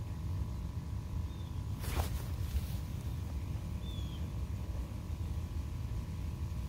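Quiet outdoor ambience: a steady low rumble with a few faint, short bird chirps and one sharp click about two seconds in.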